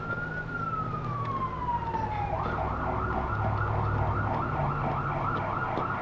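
Emergency vehicle siren: a long wail peaks and falls away, then about two seconds in it switches to a rapid yelp. A low steady hum runs underneath.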